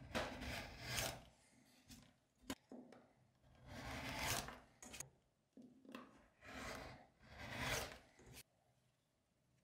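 Rotary cutter blade rolling through leather along a steel ruler onto a cutting mat, in about five separate cutting strokes that stop shortly before the end.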